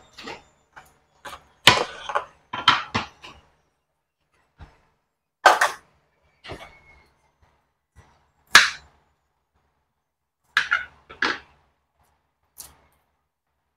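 Kitchen clatter: a string of irregular sharp knocks and clinks as cookware and utensils are handled, with a few louder strikes spread through and short silences between.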